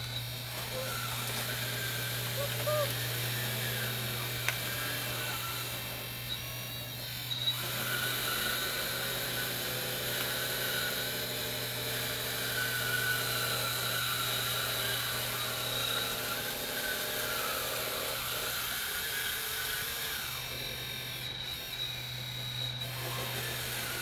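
Radio-controlled hydraulic bulldozer's electric motors whining as it crawls across grass on its tracks, the pitch wavering with the throttle over a steady low hum. The whine eases off briefly twice.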